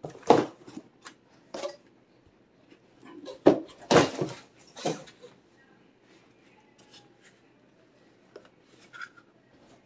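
Handling noise from unpacking a bullpup semi-automatic shotgun: the gun and its plastic-wrapped parts being moved and set down, giving several sharp knocks and rustles in the first five seconds, then only faint handling clicks.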